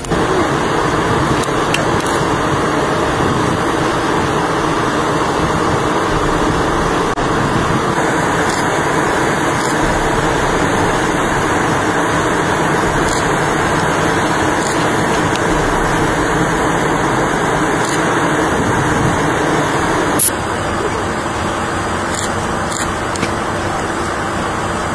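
Steady, loud rushing noise with no clear pitch, with a single sharp click about twenty seconds in.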